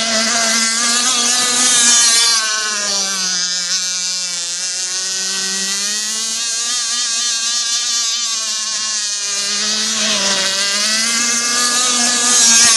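Petrol RC speedboat's small two-stroke Zenoah engine running at high revs as the boat races across the water, its pitch wavering and dipping as it turns. It gets louder as the boat passes close, about two seconds in and again near the end.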